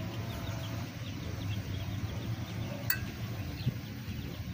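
Faint metallic clinks and scraping from a steel pry tool levered between a brake pad and the disc, pushing the caliper piston back to make room for new pads. One sharper click comes about three seconds in, over a low steady hum.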